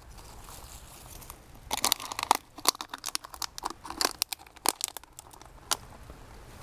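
Dry leaf litter and trash crunching and crinkling as it is moved by hand, in a quick run of sharp crackles starting about two seconds in and dying away near the end.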